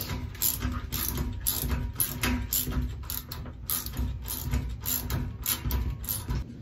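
Ratchet buckle on a tree stand strap being cranked by hand, a run of sharp ratcheting clicks about two to three a second that stops near the end.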